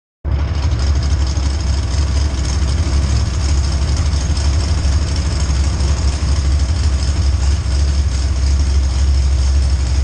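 Demolition derby car's engine idling with a steady, deep rumble, heard from inside the stripped-out cab.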